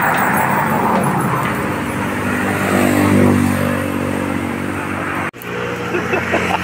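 A motor engine running with a steady hum; its pitch rises and falls around the middle. The sound drops out for an instant about five seconds in, then the steady hum goes on.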